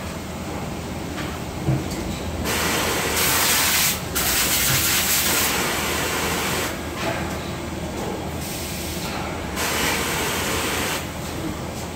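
Factory floor ambience: a steady low machinery hum, with several long bursts of hiss lasting one to three seconds each, the first starting about two and a half seconds in.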